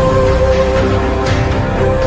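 Music: the song the edit is set to, with long held notes over a dense, steady low end.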